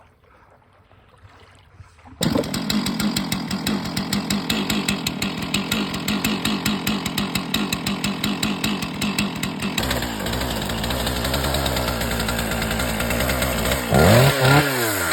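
A 5 hp outboard motor running, cutting in abruptly about two seconds in with a fast, even firing beat. About ten seconds in its note turns lower and smoother. Near the end a person's voice rises briefly over it.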